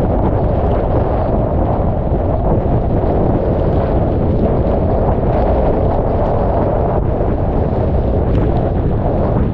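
Hurricane winds in a dying eyewall blowing hard across the camera's microphone with rain: a loud, steady rush of wind noise, heaviest in the low range, with no letup.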